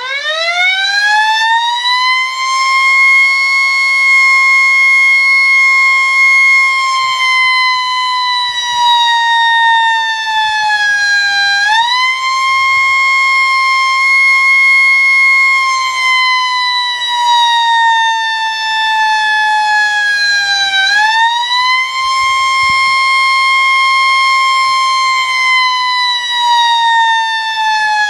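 Warning siren winding up from a low growl to a loud, high wail in the first second or so. It then holds, drooping slowly in pitch and rising sharply back up twice, about 12 and 21 seconds in.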